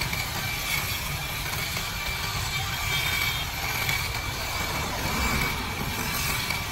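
Kutan mini cordless battery hedge trimmer running with a steady high whine as its blades cut through a leafy shrub, over a low rumble of road traffic.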